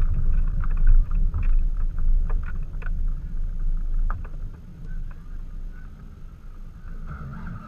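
Low rumble of a car with scattered sharp ticks and clicks, fading away over the last few seconds.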